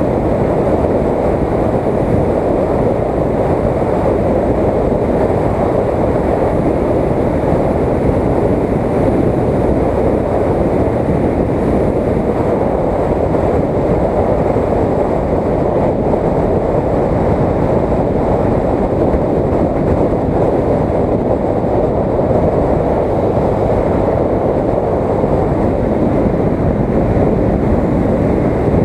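Wind rushing over an action camera's microphone on a moving motorcycle, mixed with the bike's engine and road noise. The rumble stays loud and steady, with no changes in pace.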